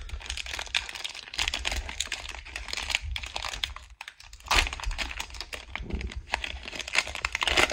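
Trading card pack wrapper crinkling and crackling as it is torn open and the cards are slid out, with a brief lull about halfway and a sharp loud crackle just after it.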